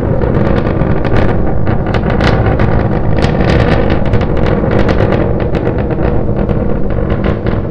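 SpaceX Starship SN9 prototype's Raptor rocket engines firing during ascent: a steady, loud deep rumble laced with dense, irregular crackle.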